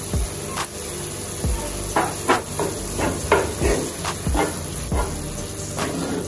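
Minced meat sizzling in a cast-iron skillet while a wooden spoon stirs it. From about two seconds in there is a quick run of scraping strokes against the pan.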